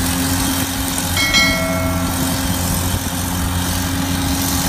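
Toy excavator running with a steady, low, engine-like hum. A brief ringing tone sounds about a second in.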